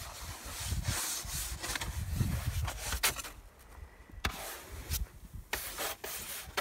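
Snow brush sweeping snow off a car's windshield: one long scraping sweep over the first few seconds, then a run of shorter, separate strokes.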